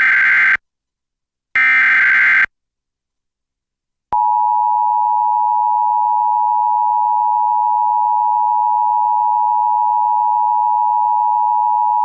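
Emergency Alert System tornado warning signal: the end of one burst of warbling SAME digital header data and a second burst about a second later, then after a short silence the EAS two-tone attention signal (853 and 960 Hz), held steady for about eight seconds and cut off abruptly.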